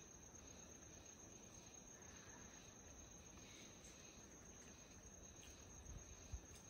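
Near silence with a faint, steady high-pitched drone of crickets in the background, and one soft low knock about six seconds in.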